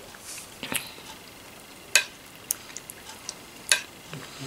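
Metal spoon clinking against a soup bowl while eating: a few sharp, separate clicks, the loudest about two seconds in and near the end.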